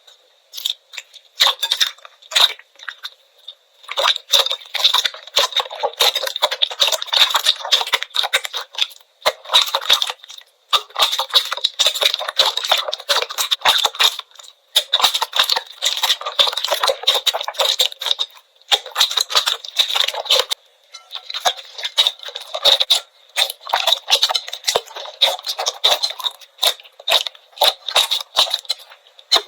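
Slime being squeezed and poked by hand, giving a dense run of small crackles and pops in stretches of a few seconds with short pauses between them.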